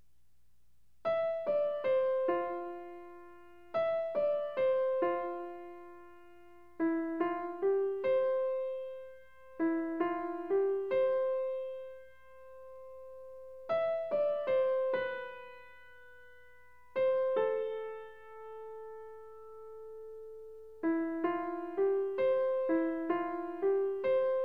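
Background piano music: a slow melody of single notes in short phrases of a few notes each, with brief pauses between the phrases.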